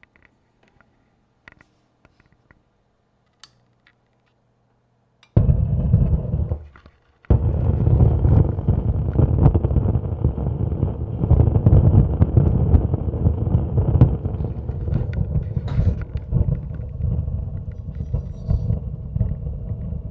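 Sub-TS15 subwoofer putting out loud, irregular low noise with no signal fed to it, starting suddenly about five seconds in, cutting out for a moment and coming back. This random noise is the fault of its preamplifier, where the old glue holding the components has become conductive.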